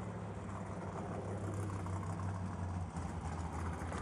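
Drag-race car engines idling steadily during their morning warm-up, a low, even engine note.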